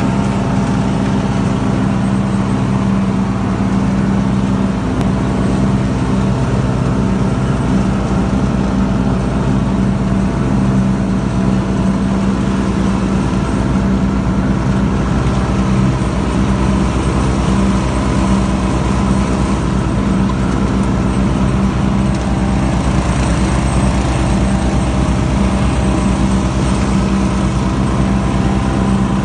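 Lawnmower engine running steadily at a constant speed, with no change in pitch or level.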